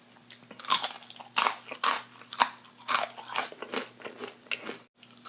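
Close-miked biting and chewing of crunchy fried food: a string of crisp crunches, about two a second. The sound cuts out briefly near the end.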